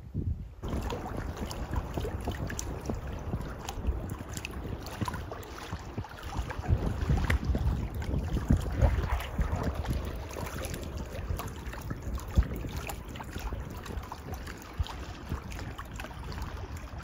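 Wind buffeting the microphone over water splashing and lapping, with scattered small knocks and one sharper knock about twelve seconds in.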